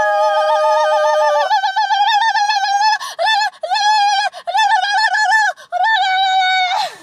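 Two people singing a long high note in falsetto together; one drops out after about a second and a half, and the other keeps going in a wavering warble that breaks off and starts again several times before sliding down at the end.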